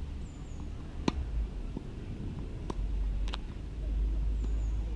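Tennis balls knocking sharply three times on the hard court and racket, over a steady low rumble. A bird chirps faintly twice, once near the start and once near the end.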